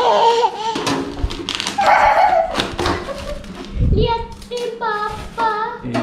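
Young children's voices, untranscribed chatter and vocalising, with a few knocks and a low thud about four seconds in.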